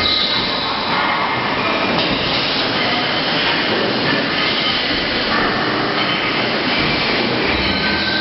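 Factory-floor machinery running, a dense steady din with many short, high squeals.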